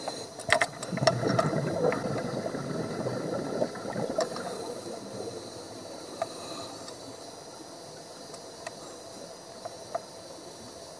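Scuba diver's exhaled bubbles bursting from a regulator, heard underwater: a loud gurgling burst of bubbles from about half a second to four seconds in, then a steady quieter hiss with a few sharp clicks.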